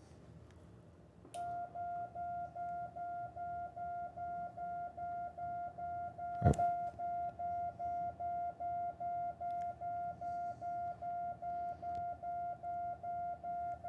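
Ham radio sending Morse code (CW) as a steady string of identical dits, a single-pitched beep about two and a half times a second, starting about a second in. A sharp click about six and a half seconds in is the loudest moment.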